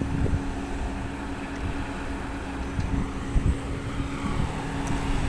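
Low, steady engine rumble of heavy machinery or a vehicle, with a few dull thumps and a steady hum that stops near the end.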